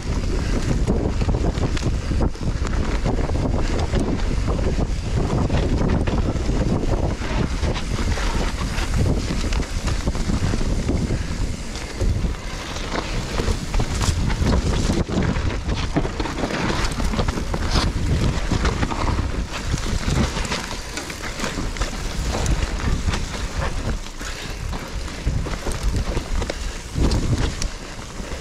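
Wind buffeting the microphone of a camera on a mountain bike descending a wet dirt trail, over the hiss of the tyres and a run of knocks and rattles from the bike as it goes over bumps.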